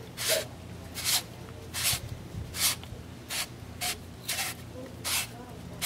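Copper pipe being scrubbed clean with an abrasive in short, even back-and-forth strokes, about eight in all at a steady pace, to prepare the copper for brazing.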